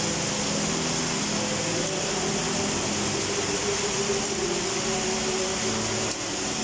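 Heavy rain pouring steadily: a dense, even hiss of rain on rooftops.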